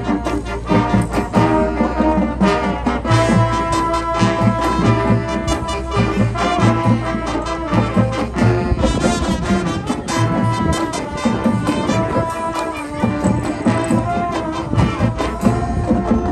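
High school marching band playing: brass chords held over a low bass line, with repeated drum hits and sharp percussion strokes. The low bass drops out a little past halfway and comes back near the end.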